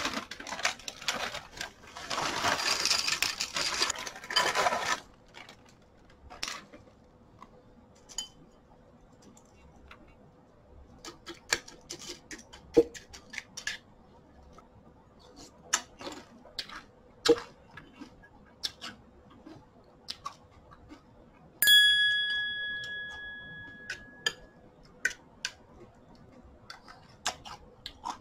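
Cornflakes poured into an empty ceramic bowl with a dry rustle for about five seconds, then sparse clinks of a metal spoon against the bowl as the cereal is stirred and eaten. About 22 seconds in, a single bright ding rings out and fades over about two seconds.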